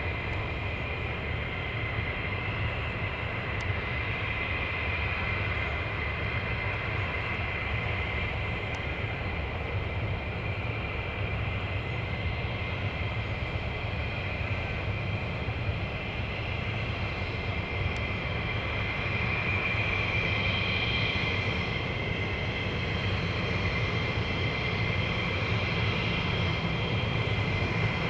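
F-15E Strike Eagle's twin turbofan engines running at taxi power: a steady high-pitched whine over a low rumble, growing a little louder about two-thirds of the way in.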